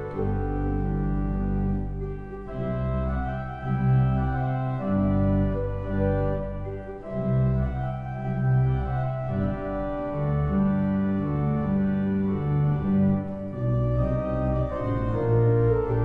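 Church organ playing a Christmas air: held chords with a melody moving above long, deep bass notes.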